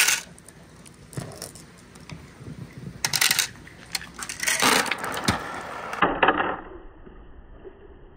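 Marbles dropped one at a time into a bamboo funnel, clicking and clattering as they fall into the bamboo tube, which is built to tip once enough marbles have gathered inside. A handful of sharp clacks come a second or more apart, with a quicker clatter around the middle.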